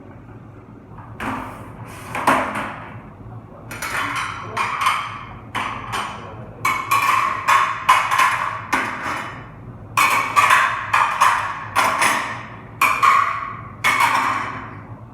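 Dishes clattering and clinking as they are handled: a fast, irregular run of sharp knocks, each with a short ring, beginning about a second in.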